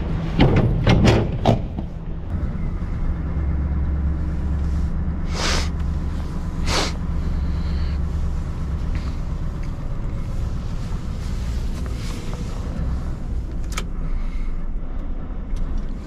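Truck's diesel engine running with a steady low rumble. A few knocks sound in the first second and a half, and two short hisses come about a second apart near the middle.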